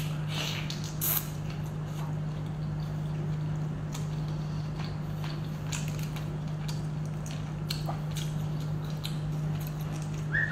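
Close-up mouth and hand sounds of eating Argentine red prawns topped with minced garlic: wet chewing, biting and shell crackle as the prawns are bitten and pulled apart by hand, heard as scattered sharp clicks over a steady low hum, with a brief high note at the very end.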